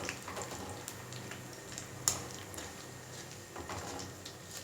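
Fine besan (gram-flour) sev frying in hot oil in a kadai: a faint steady sizzle with scattered small crackles and clicks, one sharp click about two seconds in.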